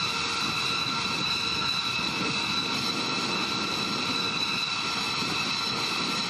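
Steady jet turbine whine over a rough rumble: several constant high tones with no change in level or pitch.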